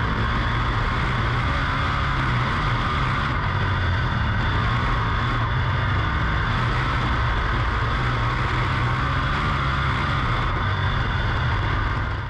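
Steady, unchanging mechanical running noise with a low hum, cut off abruptly at the end.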